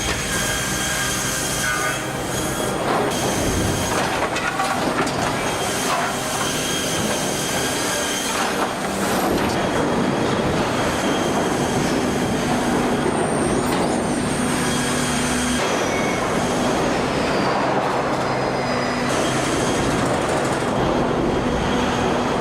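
Heavy machinery running steadily, with several sustained squealing tones over a dense mechanical noise.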